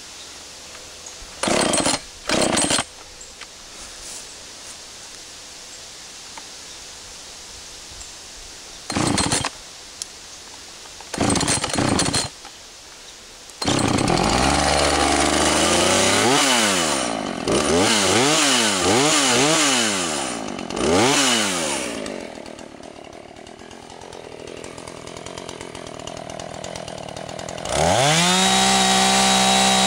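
Husqvarna 445 two-stroke chainsaw being pull-started: several short pulls on the starter cord before it catches about 14 s in. It is then revved up and down, settles to a lower idle, and near the end goes to a steady full-throttle run as the bar goes onto a log.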